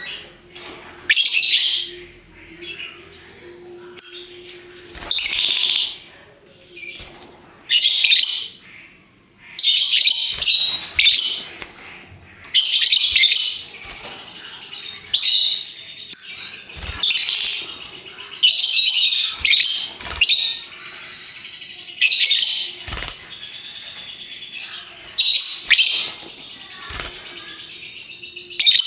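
Lovebirds giving high-pitched chattering calls in about a dozen bursts, each roughly half a second to a second and a half long, with short pauses between.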